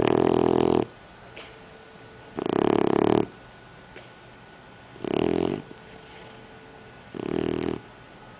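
A sleeping pet snoring: four loud snores of under a second each, about two and a half seconds apart.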